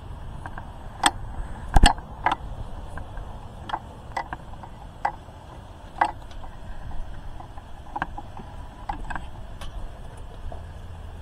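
About ten irregular sharp clicks and knocks, the loudest a double knock about two seconds in, over a steady low background hiss.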